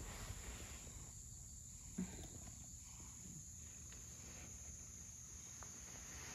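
Quiet background with a faint, steady high-pitched hiss and a single soft tap about two seconds in.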